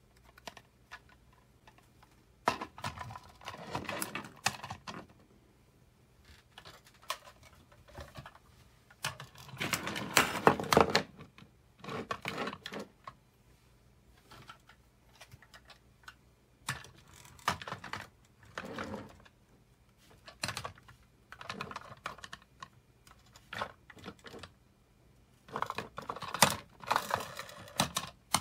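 Hard plastic toy figures and toy buses being handled and set down on a tabletop: bursts of rapid clicking and clattering, in about six clusters with quiet gaps between.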